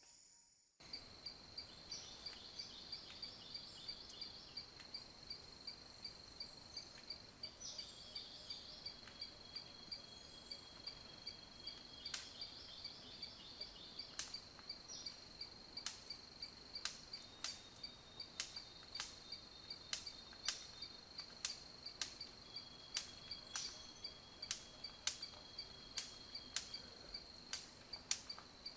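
A steady, high-pitched pulsed trill like a cricket's, with short chirping notes now and then. Sharp clicks come more often in the second half, about one a second.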